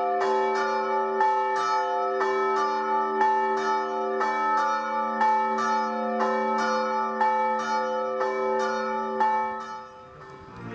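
Church bells ringing a steady peal, the strokes coming in pairs about once a second, each left ringing on. The ringing dies away about ten seconds in.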